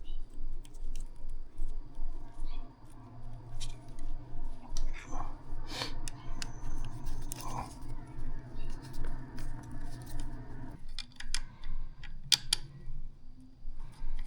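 Light clicks and metal handling noises as a hose clamp is fitted around the motorcycle's exhaust header to hold a heat shield, over a steady low hum that cuts off suddenly about eleven seconds in.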